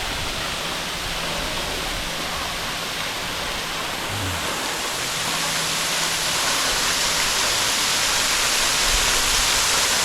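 Waterfall seen from its base: a steady rush of falling, splashing water that grows a little louder about halfway through.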